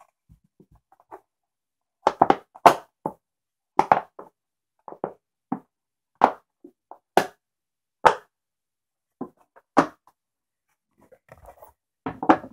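Irregular sharp knocks and clicks of hard plastic toy parts and packaging being handled during an unboxing, about a dozen spread out, with a quicker cluster near the end as the plastic stadium is picked up.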